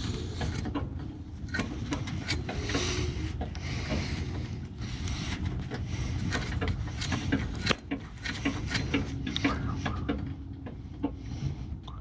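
Irregular metallic clicks and knocks at a belt-drive furnace blower assembly, over a steady low hum.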